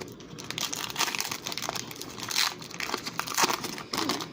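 Foil Pokémon booster pack wrapper crinkling and crackling as it is torn open and pulled apart, with a few louder crackles through it.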